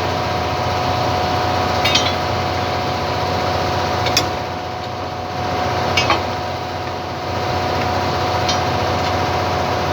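Excavator diesel engine running steadily, with four sharp metallic clinks spaced a couple of seconds apart as steel parts of the track are struck.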